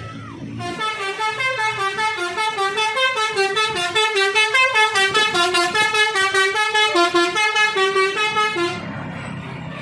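Bus telolet horn playing a fast run of changing notes for about eight seconds, then cutting off abruptly.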